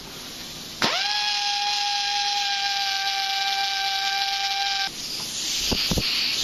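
Handheld right-angle pneumatic tool on a compressor air hose starting sharply about a second in and running free at a steady high whine for about four seconds, then cutting off. After it, air hisses and two sharp clicks come near the end as the brass quick-connect coupler is handled.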